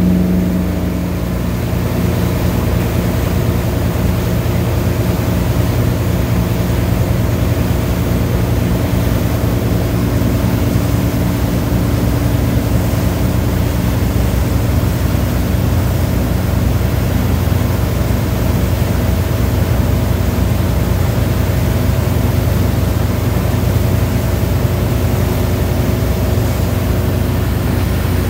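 Motorboat engine running steadily at wakesurfing speed, a low drone under the rush of wind and churning wake water. The drone eases slightly about a second in, then holds steady.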